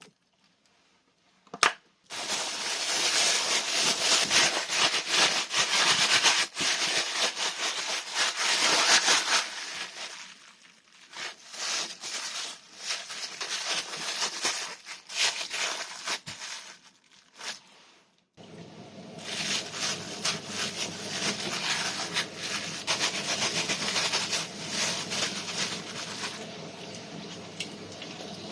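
Plastic bag crinkling and rustling as diced daikon and seasoning are kneaded through it, in long stretches with short pauses. From about eighteen seconds in, a steady low hum runs beneath it.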